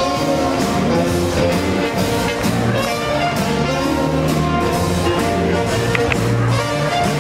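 Swing jazz music with brass, played over a steady, even beat.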